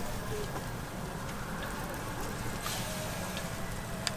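Batter sizzling in a hot cast-iron chrysanthemum-bread mold as filling is spooned in, a steady hiss over a low hum, with a light click of the spoon on metal near the end.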